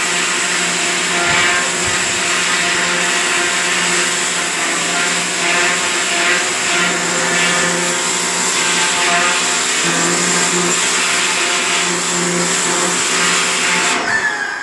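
A small electric motor running steadily, with a high hiss over it, then stopping abruptly near the end.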